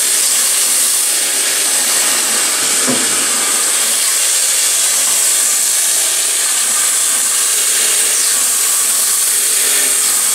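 PM-727M CNC mill's spindle running through a cut under flood coolant, the four-nozzle coolant tube spraying and splashing onto the tool and workpiece. It makes a steady, even hiss.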